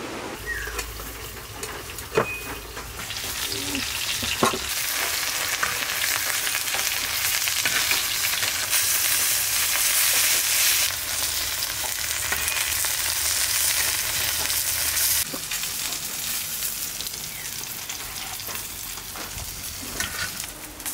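Leaf-wrapped hilsa parcels sizzling on a hot clay pan, with two sharp taps of a metal spatula in the first few seconds. The sizzling builds, is loudest around the middle, and drops suddenly a little after halfway before going on more quietly.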